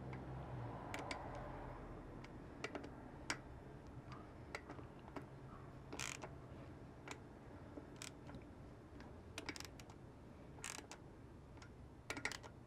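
Faint, irregular clicks and taps of a hand ratchet and socket doing up the screws of a Toyota manual freewheeling hub, tightened only lightly. A few quick clicks bunch together near the end.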